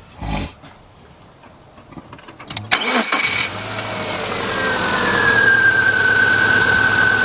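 A 2000 Subaru Impreza Outback's 2.2-litre flat-four, with a misfire under diagnosis, is cranked and catches about three seconds in, then runs steadily. A high whine comes in with it and settles slightly lower in pitch. A short thump comes shortly before the start.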